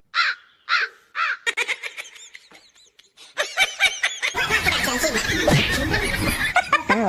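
Animal calls: a few short arching calls about half a second apart, then many overlapping calls with a noisy rush from about four seconds in.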